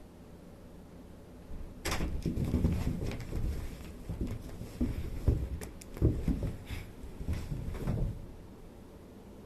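A run of irregular knocks and thumps with a few sharp clicks, lasting about six seconds and then stopping.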